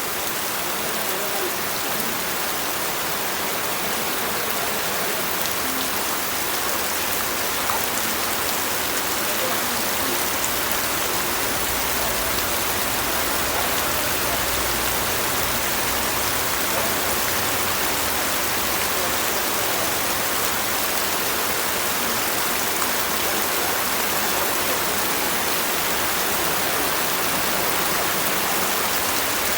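Steady heavy rain falling, a dense even hiss of drops on surfaces.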